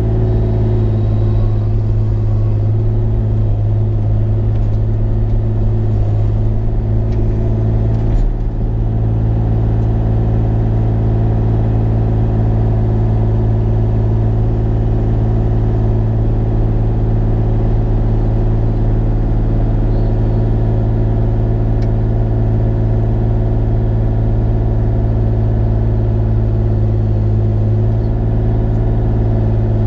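Bobcat E35 mini excavator's diesel engine running at a steady speed, with a brief dip about eight seconds in.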